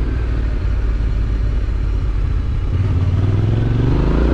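Yamaha Ténéré 700's parallel-twin engine with an Akrapovič exhaust running steadily under way; from about three seconds in the revs climb in a rising tone as the bike accelerates.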